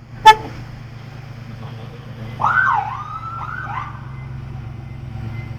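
A sharp click, then a wavering tone that rises and falls twice, over a steady low hum.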